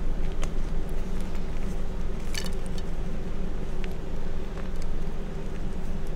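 Reformed gym chalk chunks crumbling and crunching as they are squeezed by hand, with a few short crisp crackles, the sharpest a small cluster near the middle. A steady low background hum runs under it throughout and is louder than the chalk.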